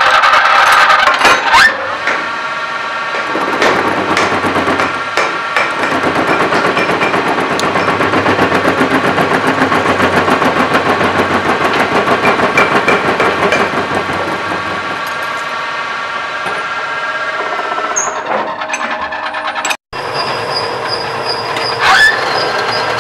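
Metal lathe running under cut, a steady gear whine over a fast rattling clatter as the tool bores a part spinning in the chuck. The sound cuts out for an instant about twenty seconds in, then the machine noise resumes.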